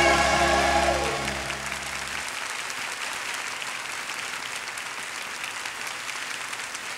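A sung note with vibrato over held backing music ends with a short falling slide about a second in, the backing stops about two seconds in, and an audience applauds steadily.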